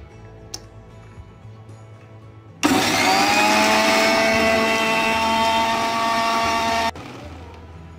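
Electric mixer grinder (mixie) grinding soaked rice with water into dosa batter. It starts suddenly about two and a half seconds in: the motor's whine rises as it comes up to speed, runs steady for about four seconds, and cuts off sharply when switched off.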